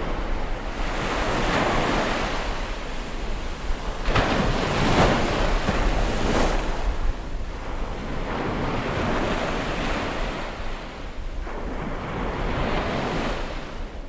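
Ocean surf: waves breaking and washing in, swelling and ebbing in several surges over a low rumble, fading out near the end.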